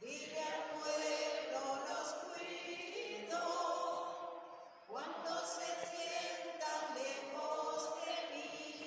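Voices singing a slow communion hymn in long held phrases, with a break between phrases about five seconds in.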